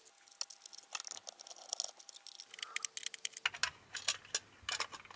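Many quick, irregular plastic clicks and light rattles as the back shell of a cheap handheld multimeter is worked loose with a small screwdriver and lifted off its front case.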